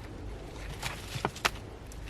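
A few short, sharp clicks over a low steady rumble.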